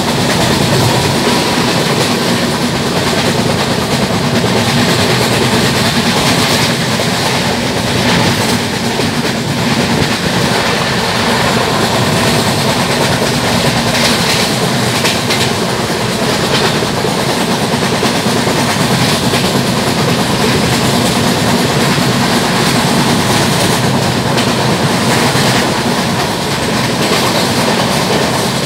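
LHB passenger coach running at speed, heard from an open window: a loud, steady rumble and rush of wheels on the rails, with the knock of flat wheels.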